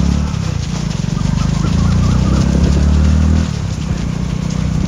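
A vehicle engine running steadily at low revs close by, easing off about three and a half seconds in, with the patter of many runners' feet on the road.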